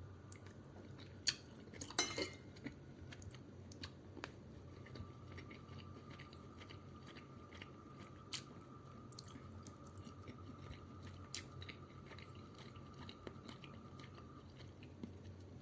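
A person quietly chewing a mouthful of spicy chicken curry rice, with a few sharp clicks scattered through it, the loudest about two seconds in. A faint steady tone runs from about four seconds in until shortly before the end.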